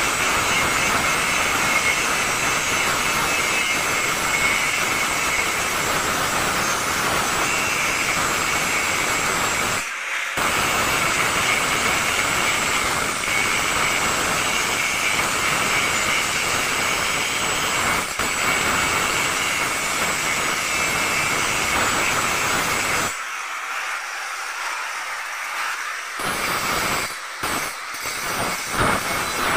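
Handheld electric angle grinder grinding the steel bars of a window grill: a steady high whine with grinding noise, broken once about ten seconds in. Near the end it thins out, then cuts in and out in short spells.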